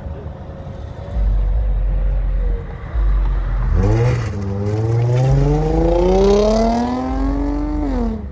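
A sports coupe accelerating away hard, its engine revving up through the gears: a rising note that dips briefly at shifts about four and five seconds in, climbs again, then falls off near the end. A low rumble comes and goes underneath.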